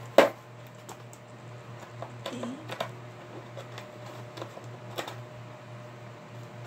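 Hard plastic clicking and snapping as a stiff plastic piece is pried open by hand, with one sharp, loud snap about a quarter second in and scattered lighter clicks and knocks after it. A steady low hum runs underneath.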